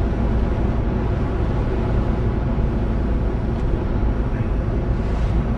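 Steady engine and tyre rumble of a car driving along a road, heard from inside its cabin.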